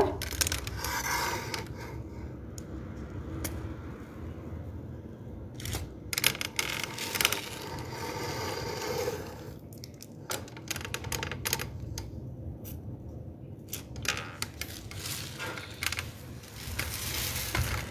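Kitchen handling noise: scattered light clicks, taps and scrapes at irregular times over a low steady hum.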